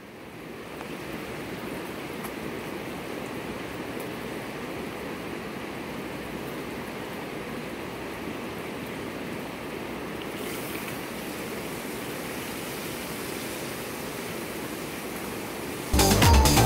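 Fish frying in hot oil in a pot over a wood fire: a steady sizzle. Near the end, loud electronic dance music cuts in suddenly.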